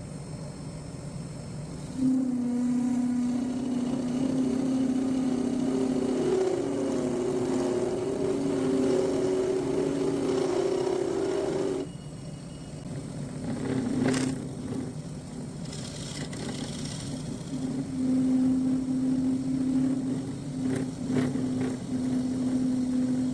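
A workshop power tool's motor running with a steady pitched whine. It starts about two seconds in and stops near the middle, with a few sharp knocks, then runs again near the end.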